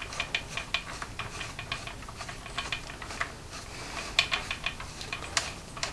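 Light, irregular clicks and scrapes as a threaded suppressor is screwed onto the muzzle of an airsoft AK, with a few sharper clicks in the second half.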